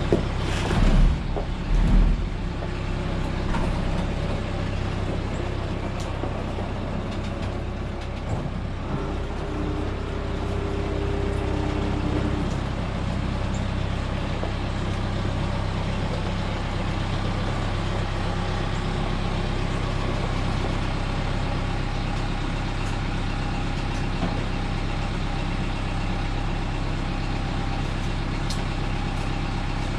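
Tractor engine running steadily, with a few heavy low thumps in the first couple of seconds and a brief steady whine about ten seconds in.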